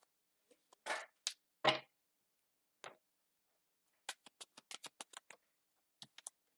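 A deck of reading cards being handled: a few soft slaps and slides, then a quick run of about a dozen crisp clicks about four seconds in, like cards being riffled, and two more clicks near the end.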